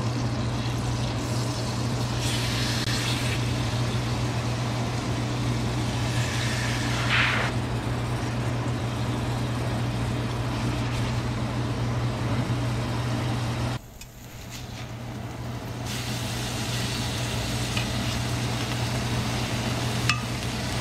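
Butter sizzling in a frying pan over a steady low hum. The sizzle drops away suddenly about two-thirds of the way in and builds back up over a couple of seconds.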